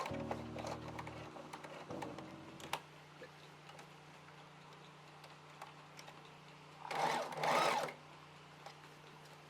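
Sewing machine running in one short burst of stitching, about a second long, near the end, after a stretch of quiet. Background music with light clicks fades out in the first few seconds.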